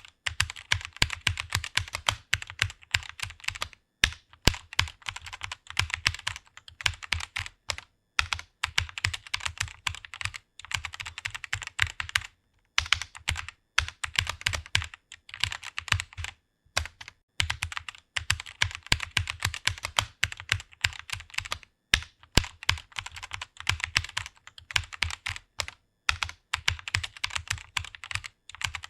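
Computer keyboard typing: fast runs of key clicks, broken by short pauses every few seconds.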